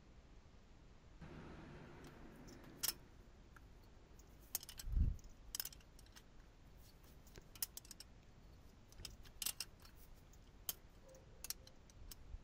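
A 13 mm spanner working on two locked-together nuts to unscrew exhaust manifold studs from a cylinder head: scattered faint metallic clicks and taps, with a low thump about five seconds in.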